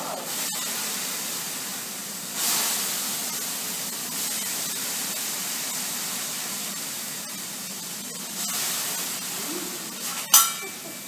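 Steady hissing of a show flame, swelling briefly about two and a half seconds in, with a short sharp sound near the end.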